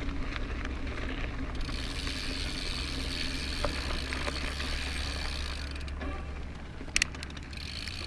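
Mountain bike freehub buzzing while the rider coasts, over a steady low rumble of tyres and wind. There are a few sharp clicks about seven seconds in.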